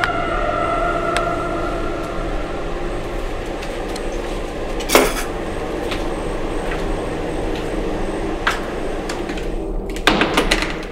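A metal lever door handle is pressed down and the latch clicks as the door opens, a quick cluster of clicks and knocks near the end. Before it, a steady low hum with a few single clicks and one louder knock about halfway through.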